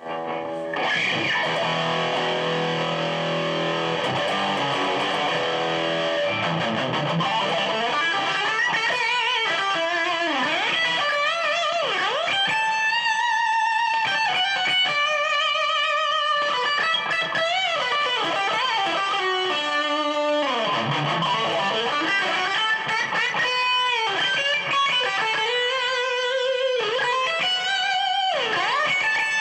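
Distorted electric guitar, a 1985 Matsumoku-built Westone GT, playing a held chord for the first several seconds, then a lead line of sustained single notes with string bends and vibrato.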